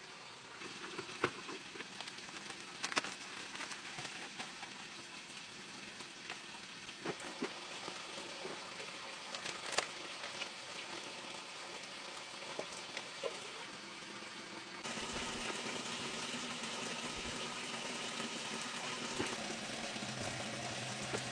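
Hands working loose potting soil: crumbly rustling with scattered light taps and knocks. About fifteen seconds in the background changes abruptly to a steadier hiss with a faint low hum.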